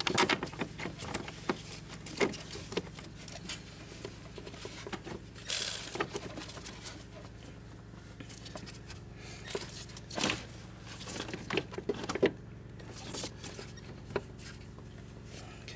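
Scattered light metallic clicks and rattles with a few short rustles: bolts and small parts being handled and fitted by hand around a car's battery tray.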